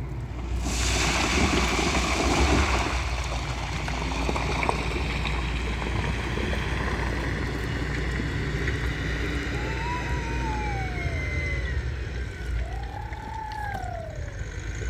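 River water rushing and gurgling under a steady low rumble, with a louder surge of hiss about a second in. Near the end come a few short whistles that rise and fall.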